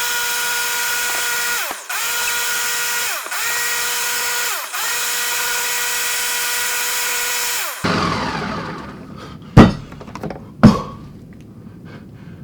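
Electric blender blending milk and ice cream on its smoothie setting: a steady motor whine that briefly dips and picks back up three times, then stops about eight seconds in and winds down. Two sharp knocks follow a couple of seconds later.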